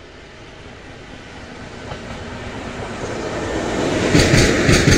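A single diesel locomotive running light approaches and passes close by, its engine and wheel noise growing steadily louder. A few sharp wheel clacks over the rail joints come as it goes past, near the end.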